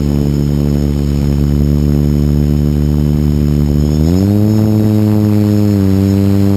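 Quadcopter's brushless motors and propellers whirring steadily at low throttle with the craft on the ground, then rising in pitch about four seconds in as the throttle is raised.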